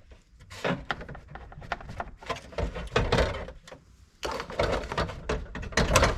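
Plastic dashboard trim of a Chevy Tahoe being handled and worked loose by hand: a run of clicks, knocks and rustles from panels and clips, busiest in the second half.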